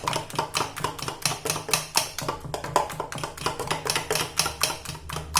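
Thick malpua batter being beaten fast in a bowl, the utensil clicking against the bowl about six times a second in a steady rhythm to beat air into the batter.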